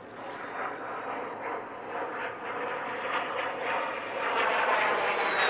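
A PBY Catalina flying boat's twin Pratt & Whitney R-1830 radial engines running as it taxis on the water, growing steadily louder. A high whine rides on top, rising slightly and then dropping near the end.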